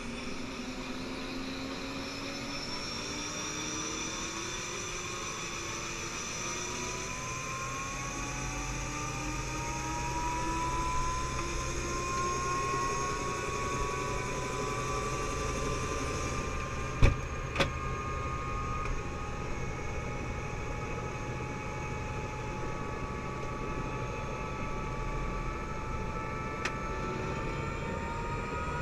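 Helicopter engine and rotor heard from inside the cabin: a steady low drone with a whine that slowly rises in pitch. Two sharp clicks about two-thirds of the way through.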